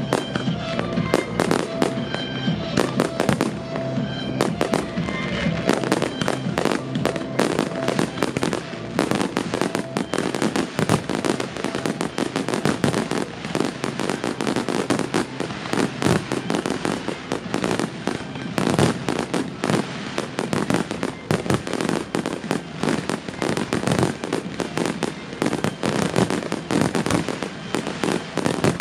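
Fireworks finale barrage: aerial shells bursting in rapid, overlapping bangs and crackles with no let-up. Music plays under the bangs for the first several seconds.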